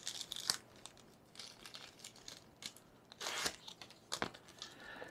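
Paper documentation being handled and unfolded, crinkling and rustling in short, uneven spells, with the loudest rustle a little past halfway and a small click shortly after.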